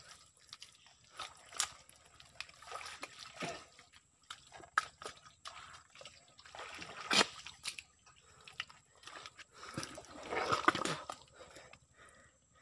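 Shallow muddy creek water splashing, sloshing and dripping irregularly as a man wades and works with his hands in it, pressing the bottom edge of a fishing net into the mud. The loudest splash comes about seven seconds in, with a longer spell of splashing near the end.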